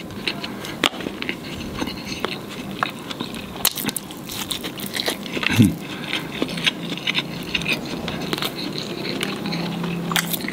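Close-up mouth sounds of chewing crispy fried chicken and rice: a steady run of small crackly crunches and wet clicks, with a spoon tapping and scraping in the plastic food tray. A short closed-mouth hum comes about halfway.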